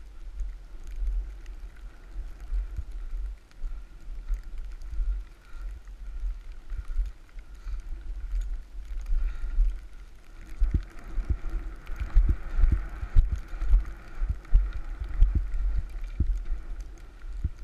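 Wind buffeting the microphone of a body-worn action camera while snowboarding through deep powder: a low rumble that rises and falls, with frequent knocks and bumps from the board and a faint hiss of snow. It gets louder and bumpier about ten seconds in.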